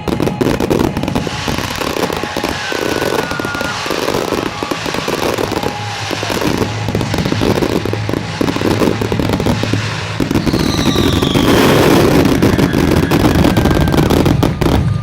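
Dense barrage of aerial firework bursts and crackling, with a few whistles, over music; the bursts grow denser and louder about ten seconds in.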